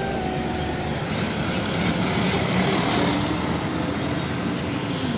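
Hino tanker truck driving by on a road: a steady mix of diesel engine noise and road noise.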